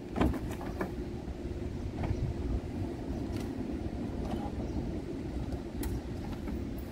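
A clunk just after the start as the minivan's sliding side door is unlatched and opened, then a few light clicks and knocks from handling the rooftop tent, over a steady low rumble.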